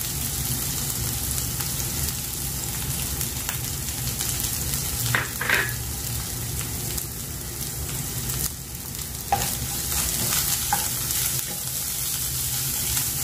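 Chopped shallots and ginger-garlic paste sizzling in hot oil in a nonstick pan as turmeric and red chilli powder are stirred in with a wooden spatula, the spatula scraping the pan a few times over a steady low hum. The spice powders are being fried out in the oil.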